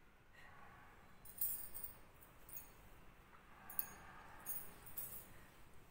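Glass bangles clinking faintly in a handful of short jingles as a woman's hand moves at her chest, with soft tearful breathing in between during a weeping pause.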